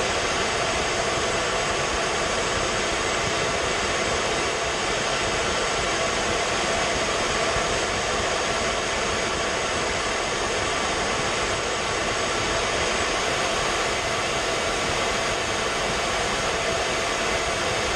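Steady jet aircraft noise heard from inside the aircraft in flight: an even rush of engine and airflow with faint steady whines, unchanging throughout.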